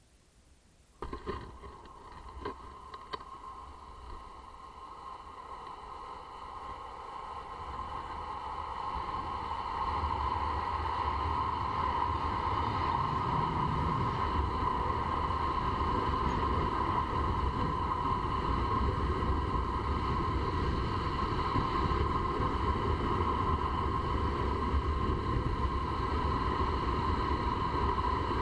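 A longboard set down on the road with a few sharp knocks about a second in, then its urethane wheels rolling on asphalt with a steady whirr, with wind on the microphone. It grows louder over the first ten seconds as the board gathers speed downhill, then holds steady at speed.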